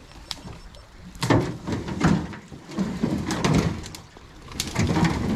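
Branches rustling and cracking, with hollow knocks and scrapes, as a small boat is worked through tangled brush at the creek's edge. The sound comes in four uneven bursts of crackle and thumps.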